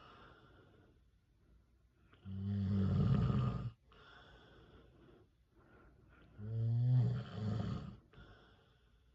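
A man snoring in his sleep: two loud snores about four seconds apart, each about a second and a half long, with quieter breathing between them.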